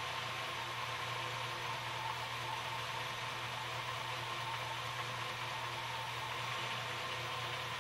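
Car engine idling steadily, with a constant hiss and low hum; the owner judges it a very healthy engine, running evenly across cylinders.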